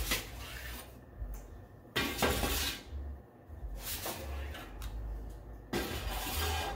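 Stainless steel bread pans being taken from the oven and set down on a gas range's cast-iron grates: metal clanks, one sharp one about two seconds in and a longer clatter near the end.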